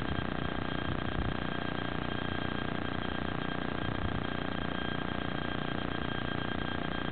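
Wind buffeting a small on-board camera's microphone: a steady rushing hiss with uneven low rumble, over a thin, steady high whine.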